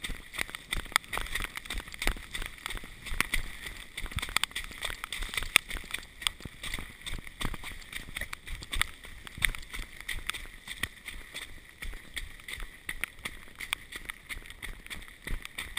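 A runner's footsteps splashing along a muddy, rain-soaked dirt trail at a quick running pace, several sharp footfalls a second, with the rustle of a plastic rain poncho.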